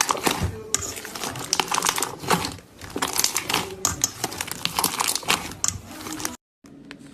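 Slime being squeezed and kneaded close to the microphone: a dense, irregular run of crackling, popping clicks. It cuts off abruptly about six seconds in, and a faint steady hum follows.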